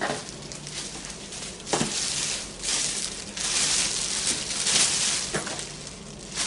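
Clear plastic wrapping being pulled off a long plastic LED light fixture, crinkling and rustling in several long surges, with a few sharp clicks among them.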